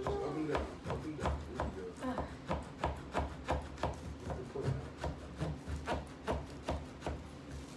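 Small pumpkin-carving saw cutting through the shell of a pumpkin to open the lid, back and forth at about three strokes a second.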